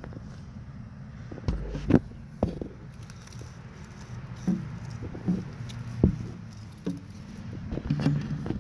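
Handling noise close to the microphone: a series of irregular knocks and clicks over a low rumble, as things are moved about by hand.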